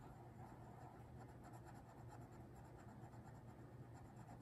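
Black felt-tip permanent marker scratching on cardstock in many quick, short strokes as a small circle is coloured in; faint.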